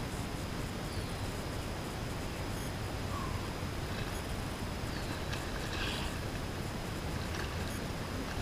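Steady wind rushing over an action camera's microphone, with a few faint chirps.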